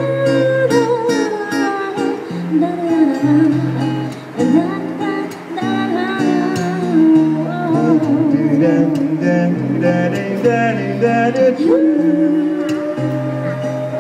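Live band with guitars jamming over a repeating chord progression, bass notes changing every second or so, under a sustained lead melody line with vibrato.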